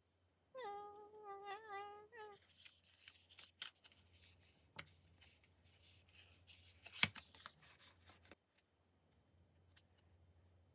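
A person hums a short wavering tune for about two seconds near the start, then faint clicks and rustles of merchandise packaging being handled, with one sharper click about seven seconds in.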